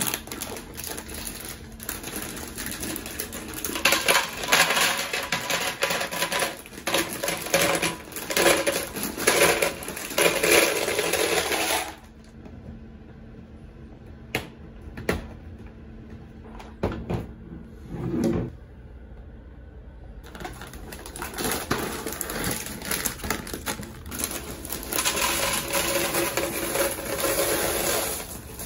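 Dry penne pasta poured from its box into a clear plastic canister: a dense rattling clatter of pieces hitting the plastic and each other, cutting off abruptly about halfway through. After a quieter stretch with a few scattered clicks, chocolate cereal pieces are poured into a second plastic canister with a similar rattling clatter.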